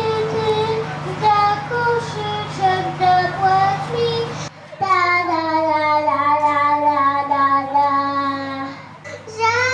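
A young girl singing into a handheld microphone, short sung phrases. About halfway through, a sudden cut to another small girl singing a long drawn-out note that slowly falls in pitch.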